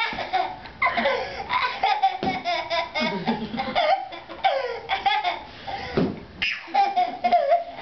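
Young toddler boy laughing hard in repeated bursts, with a held high-pitched squeal near the end.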